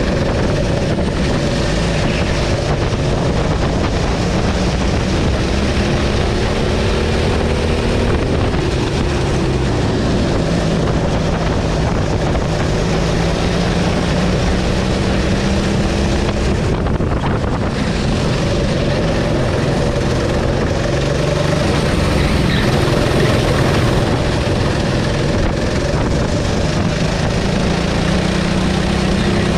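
Racing kart engine heard from onboard at race pace. Its pitch climbs repeatedly and drops as the throttle is opened on straights and lifted for corners, with a sharp dip about seventeen seconds in.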